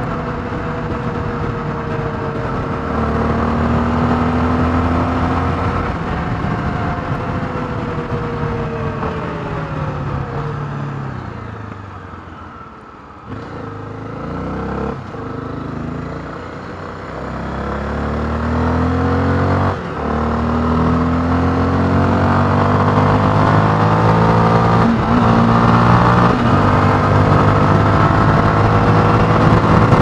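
Honda XRE 300's single-cylinder engine through its stock exhaust, heard from the rider's seat while riding. The engine note falls and quiets as the bike slows about halfway through, then rises again as it accelerates and settles into a steady, louder pull.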